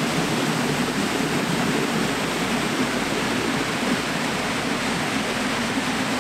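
Rushing water of a clear mountain creek running over rapids: a steady, even rush that holds unchanged throughout.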